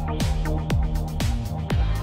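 Electronic dance music with a steady kick drum, about two beats a second, over a sustained bass line.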